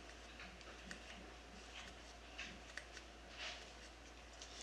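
Very quiet handling sounds: faint, scattered light clicks and ticks as hands turn and finger a plastic 80 mm electric ducted fan unit.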